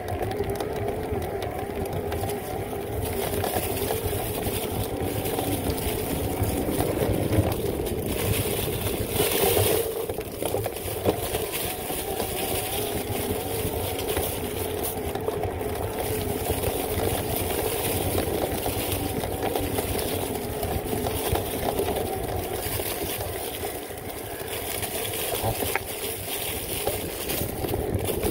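Specialized Turbo Levo electric mountain bike riding dry singletrack: a steady hum from the mid-drive motor over the rolling noise of tyres on dirt and dry leaves, with occasional knocks from the bike over bumps.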